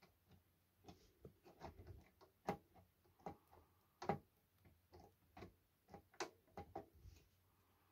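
Faint, irregular light clicks and knocks from a Sony TC-FX211 cassette deck's tape mechanism being handled and rocked in its chassis, about a dozen in all.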